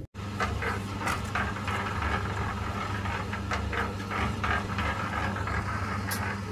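An engine running steadily, with irregular light clicks and rattles over it.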